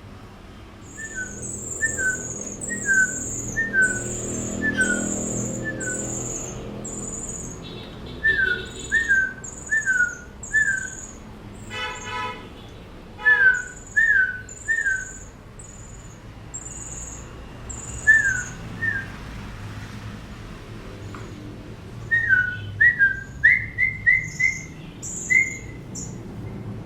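A bird calling: repeated short falling whistles, each paired with a very high thin note, about one a second in several runs. The notes climb in pitch in a quick run near the end.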